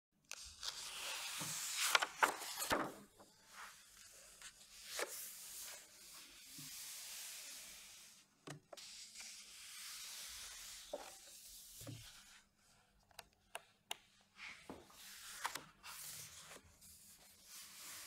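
Pages of a large book being turned and smoothed flat by hand: a series of soft paper swishes and rustles, the loudest about two seconds in, with small taps of fingers on paper between them.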